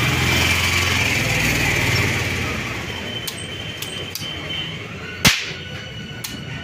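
An air pistol being unwrapped from its plastic bag and handled. For the first two seconds or so there is rustling over a low, steady engine-like hum. Then come a few light clicks and one sharp snap from the pistol about five seconds in.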